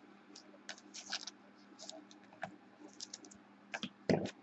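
Scattered light clicks and ticks of hands handling cards and card packs on a tabletop, with a dull thump about four seconds in.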